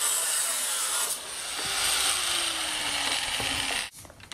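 Angle grinder with an abrasive cutoff wheel cutting through the galvanized steel wire ends of a hog wire fence panel: a steady, harsh grinding hiss that stops abruptly near the end.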